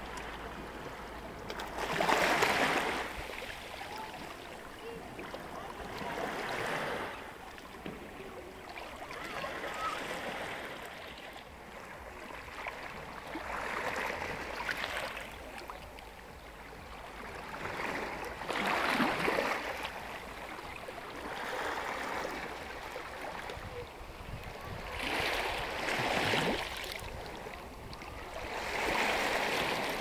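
Small sea waves lapping and washing over rocks and sand at the shoreline, coming in swells every few seconds, the loudest about two seconds in and again near the end.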